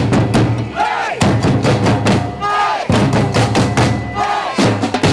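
Samba-style street drum band playing a fast, driving rhythm: deep surdo bass drums under rapid snare-drum strokes, with shouts from the crowd.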